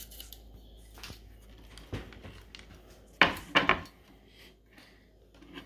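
Kitchen utensils being handled on a cutting board: scattered light clicks and knocks, then a quick run of four or five louder clatters a little past halfway, as an apple is set down and a metal apple wedger is picked up.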